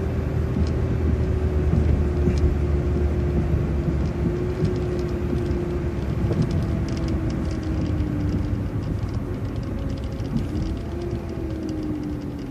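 City transit bus driving along at steady speed, heard from inside: a low drivetrain and road rumble with a whine that slowly falls in pitch, rises again about ten seconds in, then falls once more.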